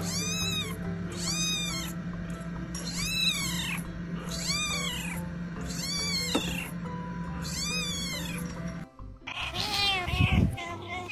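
Young kitten meowing six times: thin, high cries of about half a second each, rising and falling in pitch, over background music. About nine seconds in, the music breaks off and an adult cat meows louder and lower.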